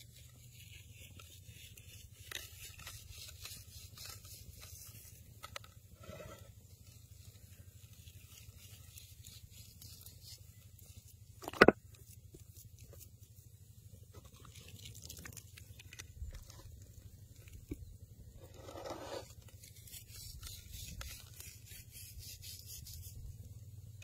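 Hand rubbing coarse salt and cracked pepper into a raw tomahawk steak, soft scraping and rubbing with scattered fine ticks of grains. One sharp click about halfway through is the loudest sound.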